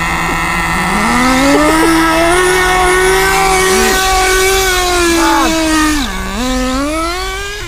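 Small two-stroke nitro engines of radio-controlled cars running: one holds a steady low pitch until about four seconds in, while another revs up about a second in, holds high, drops sharply near six seconds and climbs again as it accelerates.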